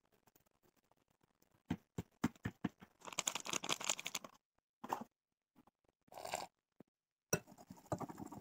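A few sharp knocks, then a rustling hiss of dry flour poured from a plastic packet into a glass bowl. Near the end, a wire whisk clicks and scrapes rapidly against the glass bowl as the batter is mixed.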